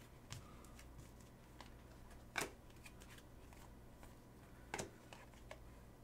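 Faint handling of a stack of baseball trading cards: soft clicks and slides as cards are flipped, with two slightly sharper clicks about two and a half and nearly five seconds in.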